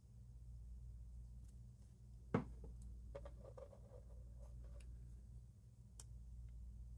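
Light handling of small die-cut cardstock pieces: one sharp tap about two seconds in, then a scatter of soft clicks and rustles, and another click near the end, over a low steady hum.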